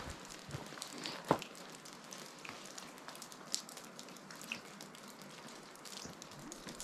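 Footsteps scuffing and crunching on a dry dirt and rock trail, in irregular clicks with one heavier step about a second in.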